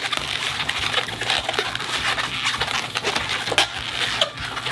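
A 260 latex modelling balloon being twisted into a row of small bubbles: a dense run of rubber squeaks and rubbing as each bubble is twisted off.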